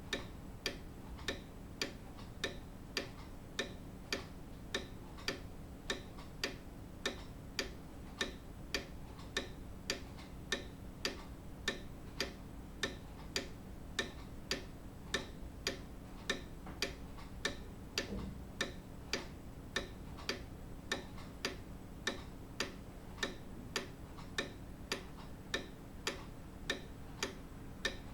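Grandfather clock ticking steadily, its escapement giving an even run of sharp ticks over a faint low hum.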